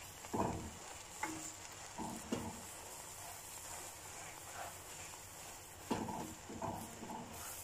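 Meat frying in a non-stick pan over a strong gas flame, a steady sizzle, with several short knocks as tongs tap and press against the pan.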